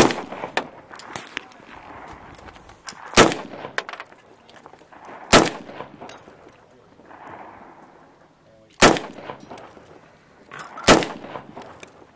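AR-15 rifle in .223 fired one shot at a time: five loud cracks, spaced about two to three and a half seconds apart, with fainter sharp cracks between them.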